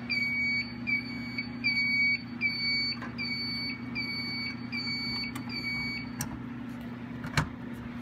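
Fire-Lite fire alarm panel's trouble sounder beeping a battery-trouble warning: short, high beeps about three every two seconds, stopping about six seconds in. A single click near the end, over a steady low hum.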